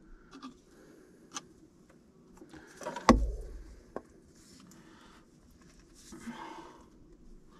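PVC drain pipe and fittings being handled and pushed together, with light plastic clicks and rustling and one sharp, loud knock about three seconds in.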